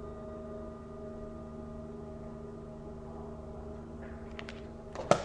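Soft background ambient music of steady, held ringing tones, with a few sharp clicks near the end.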